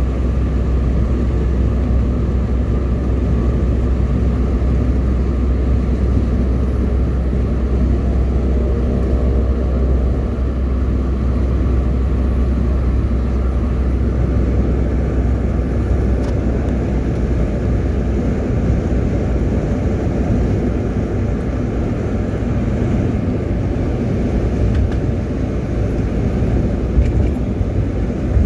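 A car driving steadily along a highway, heard from inside: a constant low rumble of road and engine noise.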